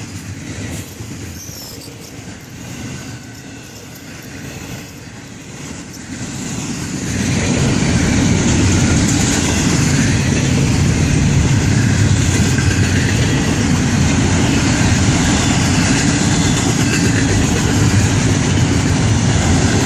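Freight cars of a Florida East Coast train rolling past on the mainline: a steady rumble of wheels on rail, somewhat quieter at first and louder and steady from about seven seconds in.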